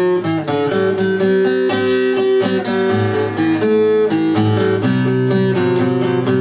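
Acoustic guitar playing an instrumental passage, chords plucked and strummed in a quick, even rhythm, with no singing.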